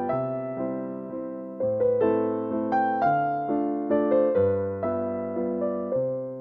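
Background piano music: a gentle melody over chords, each note struck and then fading away.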